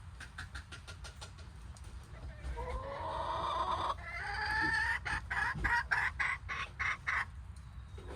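Hen calling: a few quick clucks, then two long drawn-out squawks, the first rising in pitch, then a fast run of loud clucks, about four a second.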